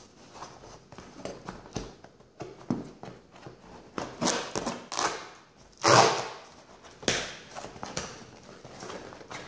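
Knife slitting the packing tape on a cardboard box, then hands pulling the tape and cardboard flaps: irregular scraping, rustling and tapping, the loudest burst about six seconds in.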